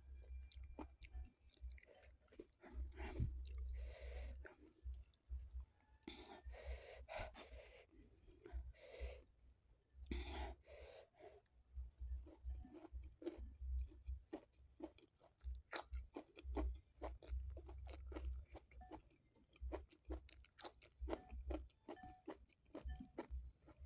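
Close-miked chewing of tiwul (cassava rice) with chili sambal and vegetables eaten by hand: a steady stream of small wet mouth clicks with some crunching, and a few longer noisy bursts between bites.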